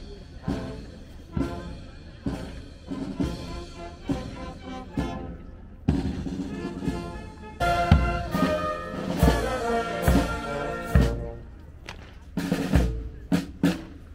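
Military marching band playing a march: brass chords over a steady snare and bass drum beat, growing louder about eight seconds in, with heavy bass drum strokes.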